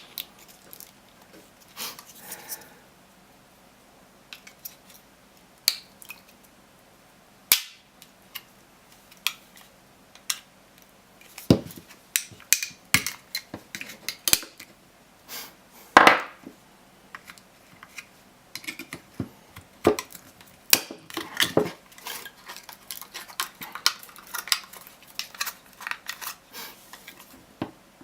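Handling noise of a laptop battery pack being taken apart to remove its 18650 cells: scattered clicks, clinks and scrapes of plastic and metal, with louder knocks about seven and sixteen seconds in and busier clatter in the second half.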